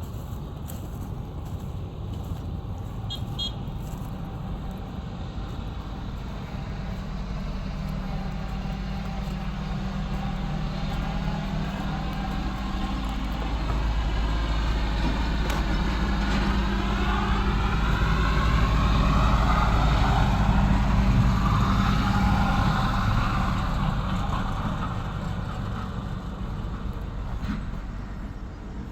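A motor vehicle's engine running steadily, growing louder to a peak about twenty seconds in and then fading again, as it approaches and passes.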